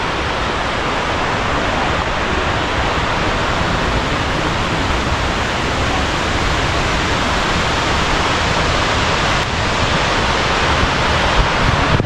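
Kuang Si waterfall's water pouring down in a steady, loud rush.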